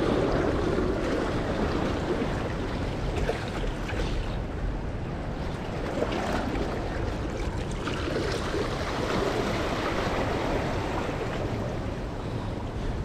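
Small waves washing and lapping against the boulders of a rocky breakwater, with wind buffeting the microphone as a steady low rumble.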